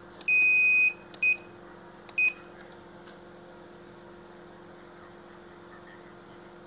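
Sharp washing machine's control panel beeping as its buttons are pressed: one long beep, then two short ones about a second apart, over a faint steady hum.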